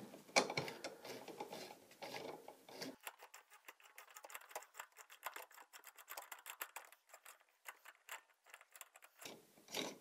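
Faint handling noise, then from about three seconds in a run of rapid, light clicks as a top-load washer's agitator assembly is twisted by hand, its ratchet mechanism ticking over while the loosened centre bolt is worked out.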